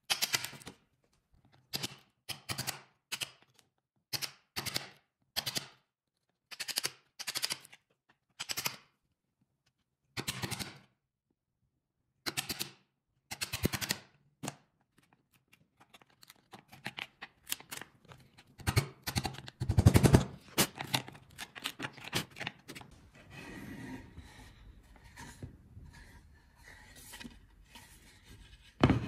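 A hand tool worked back and forth on pine in steady strokes, each stroke a short rattling burst about once a second. In the second half the strokes come faster and closer together.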